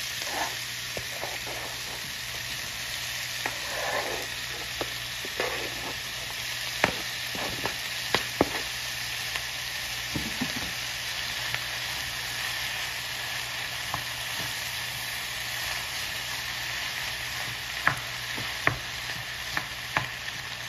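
Beef liver, onion and garlic frying in hot oil in a skillet, a steady sizzle. Scattered clicks and scrapes of a slotted spatula and wooden spoon against the pan as sliced tomatoes are added and stirred in.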